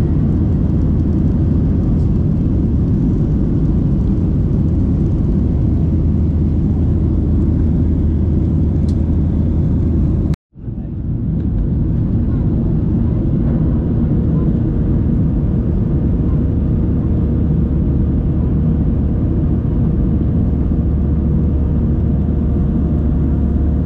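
Steady jet-engine and airflow noise heard inside an airliner cabin: a deep, even roar with a low hum under it. About ten seconds in, the sound cuts out completely for a split second, then comes straight back.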